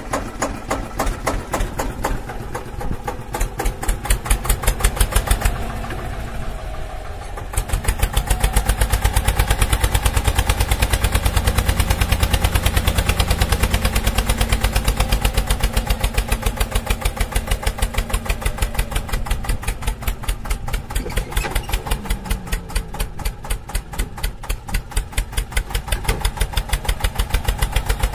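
An engine running with a fast, even chugging beat, like a tractor engine, getting louder about seven and a half seconds in and then holding steady.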